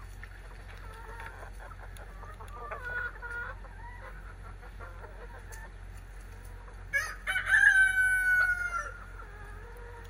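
Backyard chickens clucking softly, then a rooster crows once about seven seconds in: a long, loud call held for nearly two seconds with its pitch sinking slightly before it breaks off.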